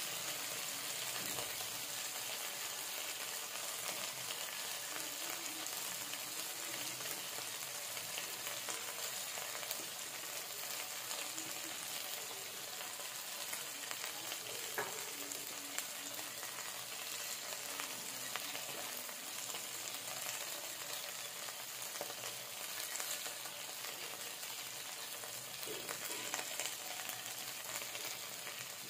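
Tomato and spice masala frying in hot oil in a kadai: a steady sizzle with small crackles.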